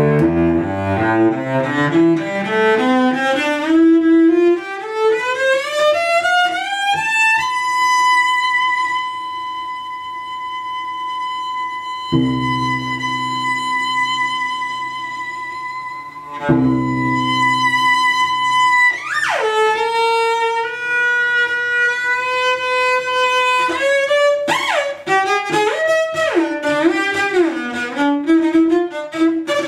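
Solo cello played with the bow: a slow glissando rising over about seven seconds to a long, steady high note, with lower notes sounding beneath it twice. Then a quick slide down to a middle note, and wavering, sliding phrases over lower notes near the end.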